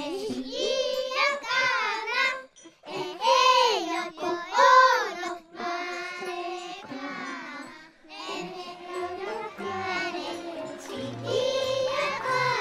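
Music: a high voice singing a slow, gliding melody, with faint low accompanying notes coming in during the second half.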